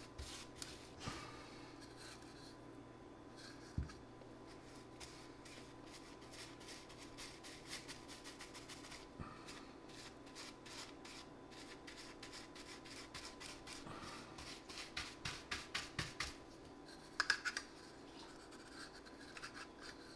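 Paintbrush bristles scratching over bare particle board as polyurethane varnish is brushed on, in short repeated strokes that come thick and fast near the end. A single soft knock sounds about four seconds in.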